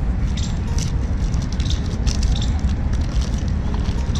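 Plastic candy wrappers crinkling and crackling in the hands as they are torn open, over a steady low outdoor rumble.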